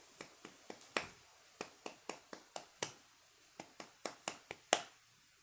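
A rapid, irregular series of about sixteen sharp clicks or taps, in loose clusters with short pauses, the loudest one near the end.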